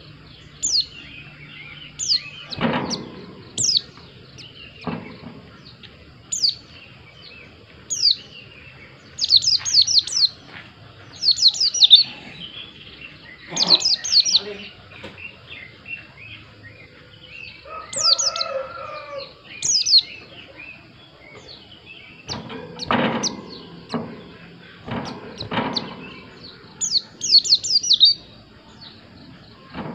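White-eye (pleci) calling: many short, very high chirps, some single and some in quick runs of several notes. A few short broad rustles or knocks come in between, and a lower, drawn-out sound a little past halfway.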